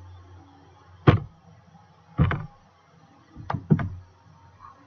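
Four sharp knocks close to the microphone, the last two in quick succession.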